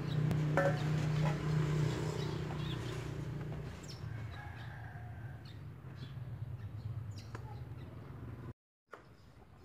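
Outdoor rural ambience: a low steady hum that fades after about three seconds, with a few scattered bird chirps.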